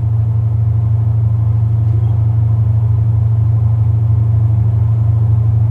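Steady low hum of a ship's engine machinery, running at an even level with no change in pitch.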